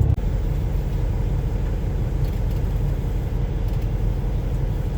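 Semi-truck diesel engine running steadily with a low rumble, easing off slightly just at the start.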